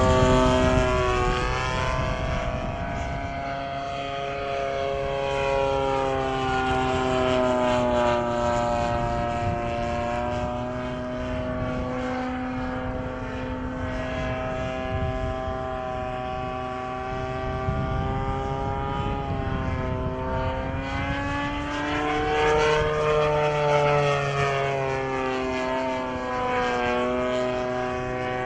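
Radio-controlled model airplane's engine and propeller droning steadily in flight, the pitch sliding slowly up and down as the plane turns and passes, rising for a couple of seconds near the end.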